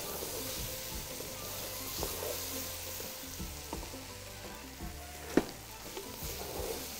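Raw rice frying and sizzling in spiced oil in an aluminium pot, toasting before any water goes in, as a wooden spoon stirs it. There are small knocks of the spoon against the pot and one sharp knock about five seconds in.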